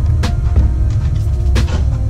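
Background music with a heavy, steady bass and a few sharp percussive hits.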